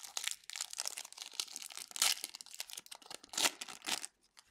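Foil trading-card pack wrapper being torn open and crinkled by hand: a dense crackle with two louder rips, about two seconds in and about three and a half seconds in. It stops just before the end.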